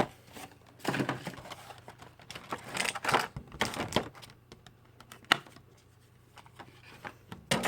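Pokémon card packaging being opened and handled: short bursts of rustling with sharp clicks and taps of plastic and cardboard, the loudest about one and three seconds in, a single sharp click a little after five seconds.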